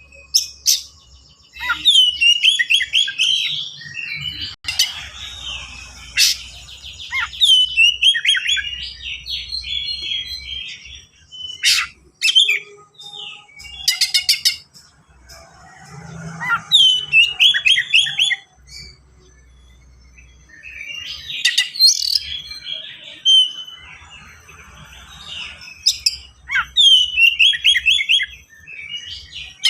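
Oriental magpie-robin (kacer) singing in full song: fast, densely packed phrases of rapid chattering and whistled notes, including mimicked calls, with short pauses between phrases.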